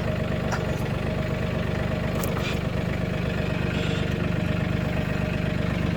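Mahindra 1626 tractor's diesel engine idling steadily, with a few light clicks over it.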